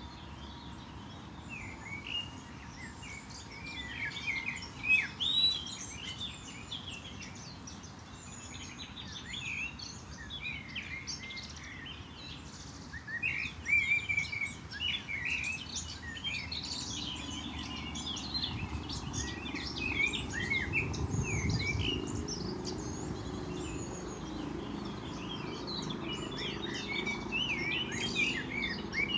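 Many small birds chirping and singing at once, a dense chorus of short high calls. A low rumble swells in about halfway through and carries on under the birds.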